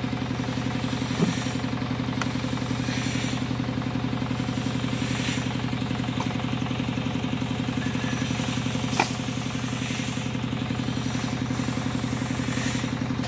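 Stihl 070 two-stroke chainsaw idling steadily, with a short sharp knock about a second in and another about nine seconds in.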